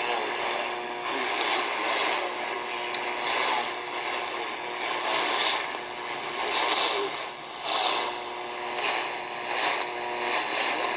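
Shortwave AM broadcast from Radio New Zealand International on 13690 kHz playing through the speaker of a C. Crane CC Skywave SSB 2 portable radio, mixed with static hiss. This is the reception the radio gets through a GA-800 antenna.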